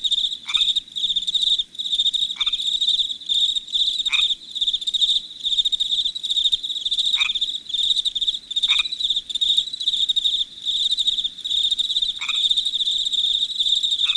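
A chorus of crickets chirping steadily in fast, pulsing trills at a high pitch. Over it, a frog gives a short call that falls in pitch, about seven times at uneven intervals.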